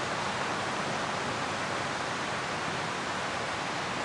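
Steady, even hiss of outdoor background noise, with no distinct events standing out.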